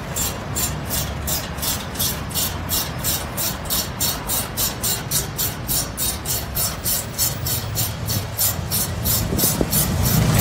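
Hand ratchet wrench worked in quick back-and-forth strokes, a regular rasping click about four times a second, undoing a bolt on a motorcycle shipping crate.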